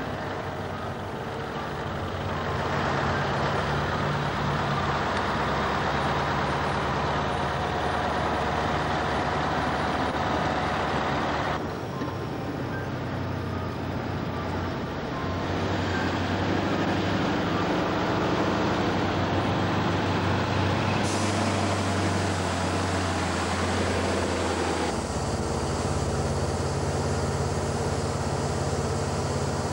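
Diesel engine of a loaded timber truck running steadily on a gravel road, the engine note shifting in pitch as it works. The sound changes abruptly about twelve and twenty-one seconds in.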